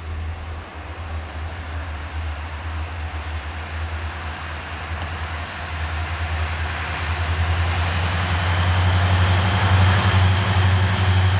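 CSX diesel freight locomotives under power, a deep, steady engine drone with rumble and hiss, growing louder as the train comes out of a tunnel and approaches.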